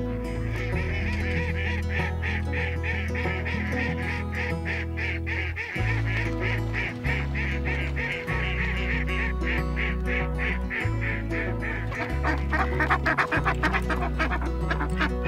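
Ducks quacking in quick repeated series, busiest and loudest near the end: live decoy ducks in a wire crate. Background music with sustained bass notes runs beneath.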